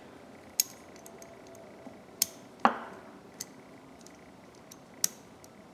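A few sharp, irregular small metallic clicks from a quarter-inch ratchet being handled, its reversing lever flipped back and forth, about five clicks spread over several seconds.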